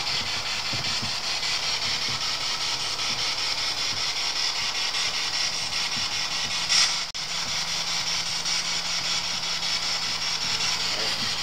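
Steady hiss of static, with a faint low hum underneath and a brief louder crackle about seven seconds in.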